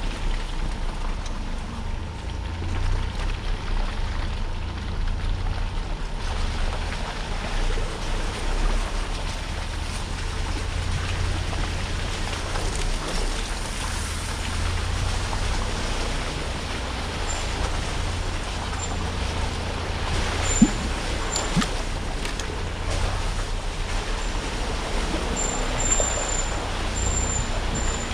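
Off-road 4x4 vehicle driving slowly over a rough trail: a steady low engine and drivetrain rumble with road noise, and a few sharp knocks from the truck bouncing over rocks, the loudest about two-thirds of the way through.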